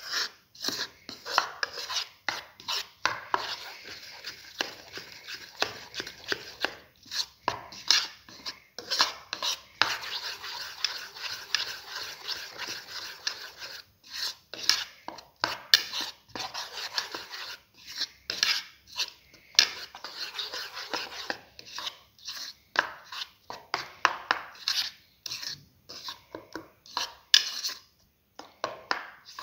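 A spoon stirring and beating thick chickpea-flour batter in a bowl to work out the lumps, with quick, irregular taps and scrapes against the bowl. Near the middle there is a longer stretch of steady scraping.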